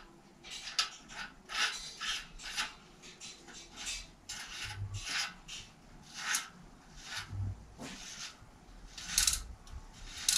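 Short, irregular rasping rubs, one to three a second, from the parts of a Sachs-Maillard screw-on bicycle freewheel being worked by hand on the wheel hub during its reassembly.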